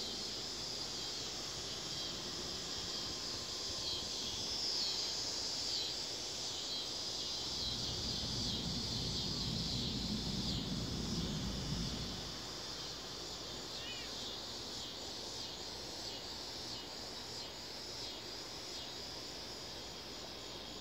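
A steady chorus of insects, like crickets, shrilling high, with a low rumble swelling and fading about halfway through.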